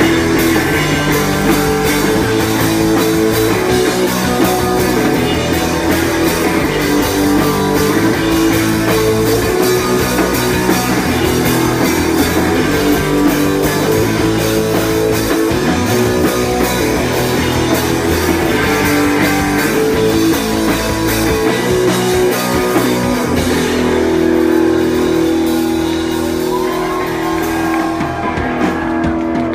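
Live rock band playing loud: electric guitars, electric bass and a drum kit. For the last few seconds they hold long, ringing chords with fewer drum hits as the song closes.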